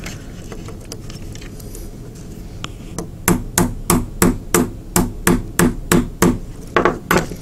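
Small hammer tapping a pin punch in a run of light, evenly spaced strikes, about three a second, starting about three seconds in, driving the metal hinge pin out of a plastic toy robot's shoulder joint.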